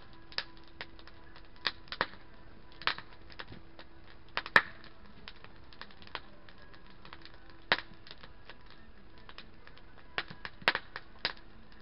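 Wood fire crackling: irregular sharp pops and snaps, the loudest about four and a half seconds in, with a quick run of them near the end.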